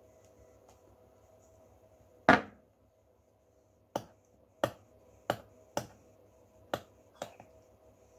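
Kitchen handling sounds: one loud knock with a short ringing tail, then a series of sharp clicks and taps, over a faint steady hum.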